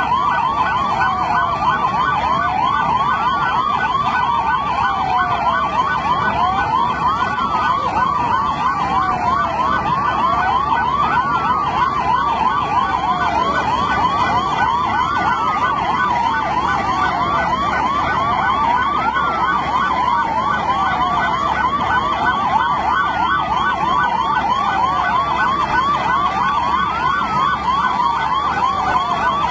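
Emergency vehicle sirens sounding together: a fast yelping warble over a slower wail that rises sharply and falls away about every four seconds.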